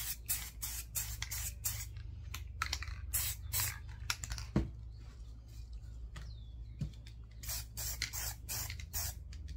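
Aerosol spray paint cans hissing in many short, quick bursts as dark and light green are dabbed on in gradients, over a steady low hum.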